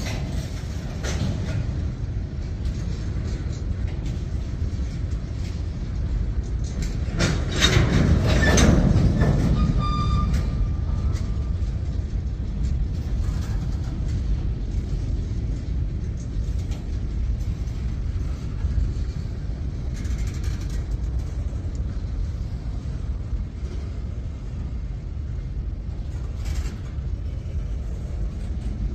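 Freight train cars, mostly boxcars, rolling past with a steady low rumble and rattle of wheels on rail, louder for a couple of seconds about eight seconds in, with a short high-pitched tone just after.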